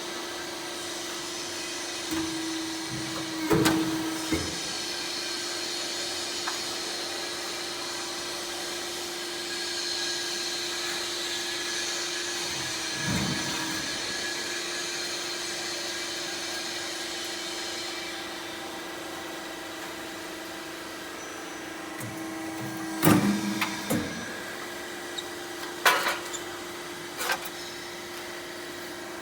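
Half-round rain gutter roll forming machine running with a steady motor hum, broken by a few sharp metallic knocks, the loudest near the end.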